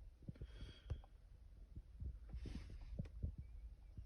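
Faint handling noise: scattered light taps and low thumps at an irregular pace, with a brief soft rustle about two and a half seconds in.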